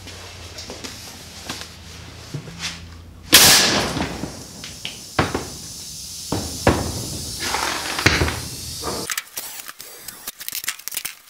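A tire bead setter's air tank fires a loud blast of air into a garden tractor tire about three seconds in, seating the bead on the rim. A hiss of escaping air and handling knocks follow; the owner puts the hiss down to a valve core not screwed all the way in.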